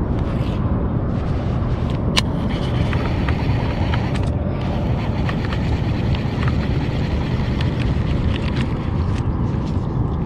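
Shimano SLX baitcasting reel being cast and reeled in, giving a sharp click about two seconds in and then a run of small ticks and a faint whine. Under it, a steady low rumble on the microphone.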